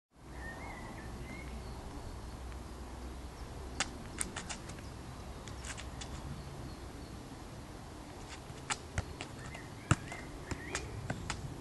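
A football being juggled on a street, its touches coming as sharp taps: a cluster about four seconds in, a few near six seconds, and a run from about nine seconds, the loudest near ten seconds. A bird chirps faintly near the start and again near the end over a steady faint outdoor background.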